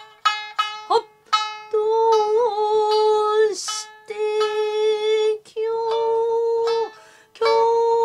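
A woman singing kouta in long held vowel notes, accompanied by plucked shamisen notes.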